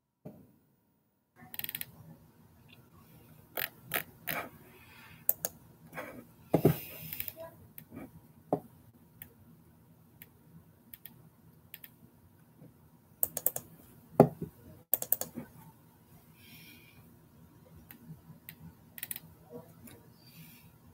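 Computer keyboard and mouse being worked: irregular taps and clicks with a few louder knocks, starting about a second and a half in.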